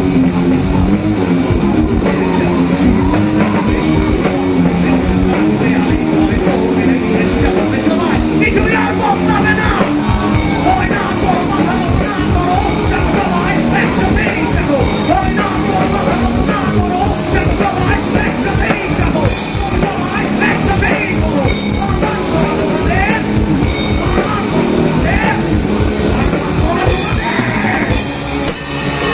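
Live rock band playing the intro of a song at full volume, with the drum kit to the fore over distorted guitars. From about eight seconds in, a melody bending up and down rises above the band.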